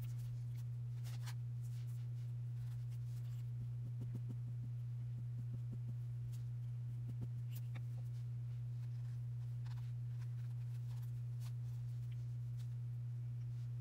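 A steady low hum, with faint scattered rustles and light ticks from hands handling lace, paper and a glue bottle.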